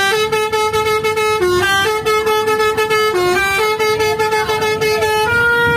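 Indonesian 'telolet' multi-tone bus horn playing a tune of rapidly pulsing toots that step between a few pitches, ending on one longer held note.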